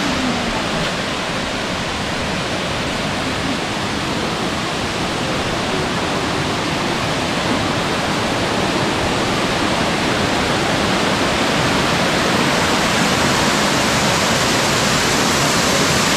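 Amicalola Falls, a tall waterfall cascading over rock ledges, rushing steadily with an even wash of noise that grows slightly louder near the end.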